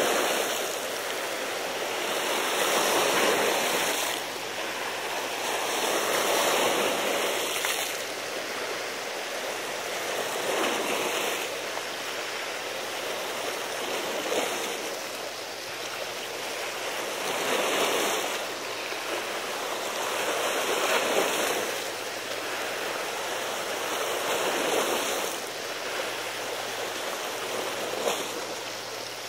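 Sea waves washing against the sea wall's rocks, a steady wash that swells and eases about every three to four seconds.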